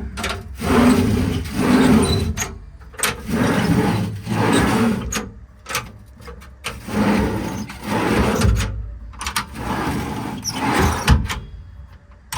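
Metal IMT factory drawers in a truck service-body compartment being pulled out and pushed back in one after another: about a dozen short sliding strokes, each ending in a clunk at its stop, with a couple of heavier thumps near the end. The slides run but could use more lubrication.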